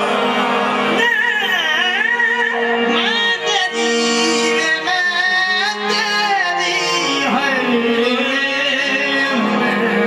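Qawwali: male voices singing long ornamented lines that glide up and down in pitch, over the steady held chords of a harmonium.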